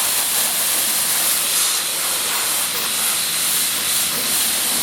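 Coin-op car wash pressure-washer wand spraying a steady high-pressure jet of water onto a road bicycle's frame and wheels, a continuous loud hiss.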